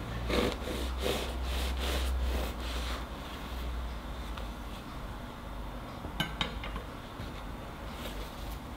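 Kitchen knife cutting through the crust of a baked bread roll on a wooden board: a series of short cutting strokes in the first few seconds, then a couple of sharp clicks a little past the middle.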